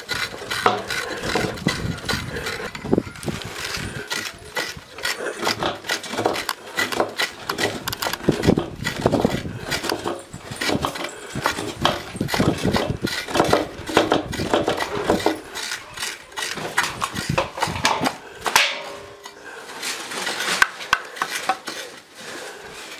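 Coconut halves scraped against the toothed blade of a hand coconut scraper mounted on a board, in quick repeated scraping strokes as the flesh is grated out.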